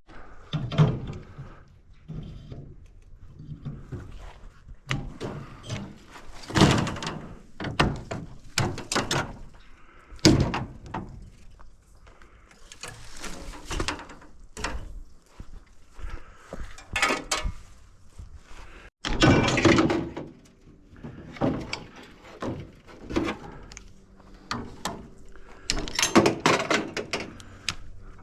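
Irregular knocks, clanks and thuds of a gas heater being taken apart by hand for scrap, with metal parts being pried, pulled and dropped.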